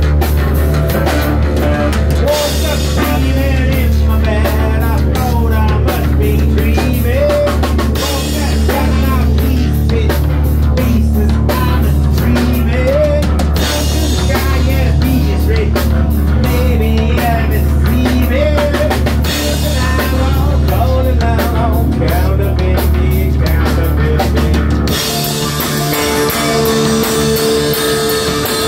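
Live rock band playing an instrumental passage: an electric guitar lead with bent, wavering notes over drum kit and bass guitar. About 25 seconds in the deep bass drops out and the sound turns brighter.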